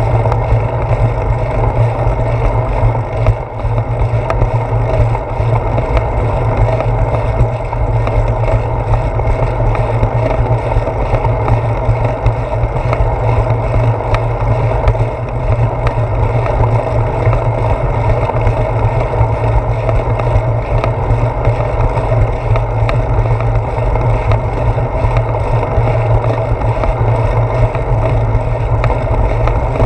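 Bicycle ride on a concrete path heard through a handlebar-mounted GoPro Hero 4: a steady, loud rumble of wind and road vibration, with scattered small ticks.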